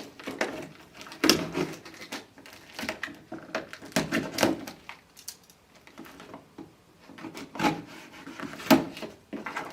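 A shipping box being opened and unpacked by hand: irregular knocks, scrapes and rustles of the box and its packaging.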